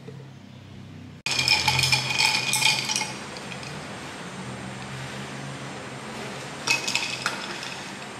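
A drinking glass clinking as it is handled on a table: a cluster of sharp clinks lasting about two seconds starting about a second in, and a shorter clink near the end.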